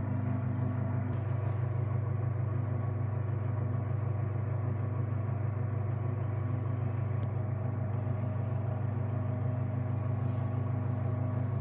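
Microwave oven running: a steady, even hum with a low drone and no change in level.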